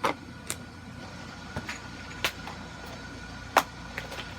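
A few sharp clicks and taps of things being handled, the loudest about three and a half seconds in, over a steady faint hum.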